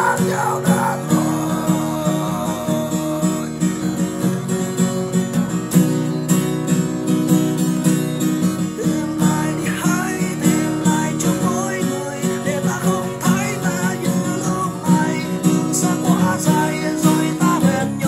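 Acoustic guitar strummed in a steady rhythm, ringing chords in an instrumental passage of a song.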